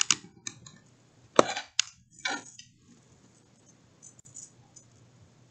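Sharp clicks and taps from a computer mouse and keyboard close to the microphone. There are several loud separate strokes in the first two and a half seconds, then a few fainter ticks near the end.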